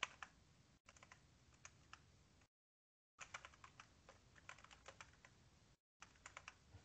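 Faint typing on a computer keyboard: quick, irregular key clicks, with the sound cutting out to total silence twice.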